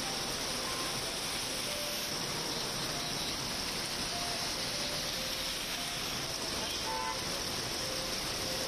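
Heavy rain pouring steadily onto a road, an even hiss that does not let up.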